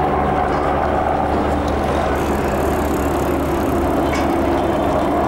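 Steady, loud engine drone with a constant low hum and no pauses.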